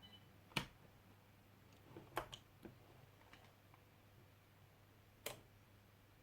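Near silence over a faint low hum, broken by a few short, faint clicks of hands handling the radio transmitter as it is switched on. The plainest clicks come about half a second in, about two seconds in and near the end.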